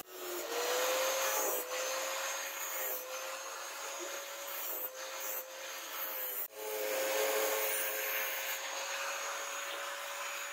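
Angle grinder with a thin disc grinding a forged steel hook blade: a steady motor whine under a harsh rasping hiss of disc on steel, with a short break about six and a half seconds in before it carries on.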